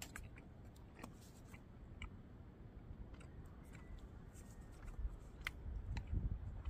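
Faint, scattered clicks and scrapes of a plastic spoon against a tin can, with the can being handled.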